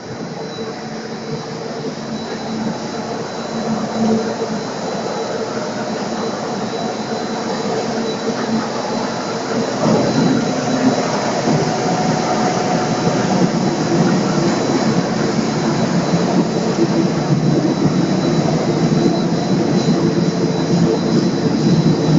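Coal briquetting plant machinery running: electric drive motors, belt conveyors and mixing equipment making a steady, loud industrial din with a few constant hums through it. It grows louder about ten seconds in as the machines come closer.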